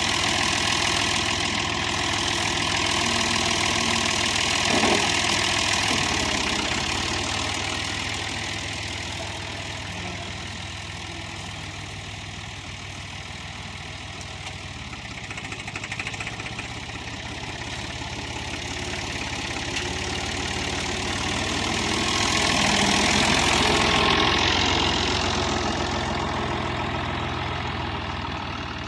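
Massey Ferguson 350 tractor's diesel engine running steadily, growing louder about five seconds in and again for a spell past twenty seconds as it moves close by.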